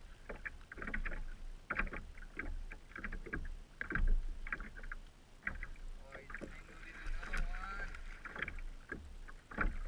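Irregular clicks and knocks of fishing tackle being handled on a kayak while a fish is fought on a bent rod, over a steady low rumble.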